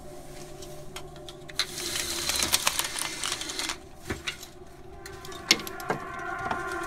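Overlapping steady horn-like tones, like dozens of car horns sounding at once, growing louder and fuller about five seconds in: most likely a warning siren being tested. About a second and a half in comes a rattling clatter, as of window blinds being handled, followed by a few sharp clicks.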